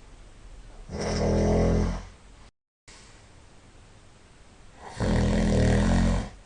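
A person snoring loudly: two long snores about four seconds apart, each lasting about a second, with quiet breathing between them.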